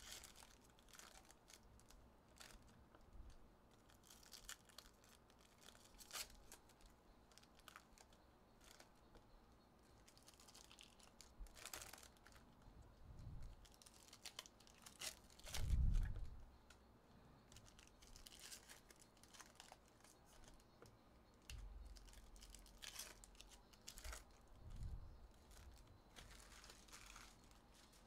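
Faint tearing and crinkling of foil trading-card pack wrappers being opened by hand, with light clicks of cards being handled and a few soft thumps, the loudest about halfway through.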